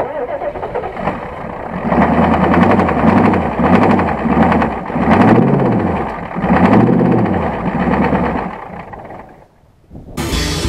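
Ford 6.9 IDI V8 diesel engine cranking and trying to catch, its speed rising and falling unevenly about once a second. It dies away near the end.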